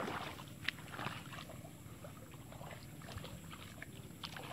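Faint footsteps swishing through wet grass and soggy ground, with scattered short rustles and one sharper tick.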